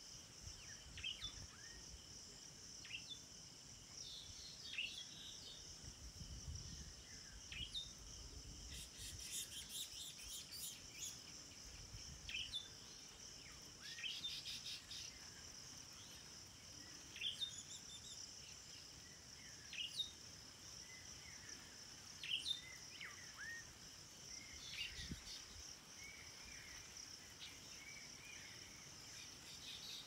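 Birds chirping in short, separate calls every second or two over a steady high-pitched drone of insects.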